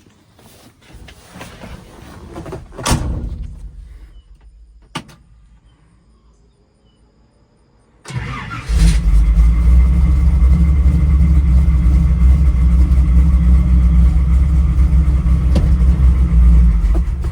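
A thump about 3 s in and a sharp click near 5 s, then the 1965 Chevy C10's small-block V8 starts about 8 seconds in and runs loud and steady. It has just had its ignition timing set and its carburettor adjusted.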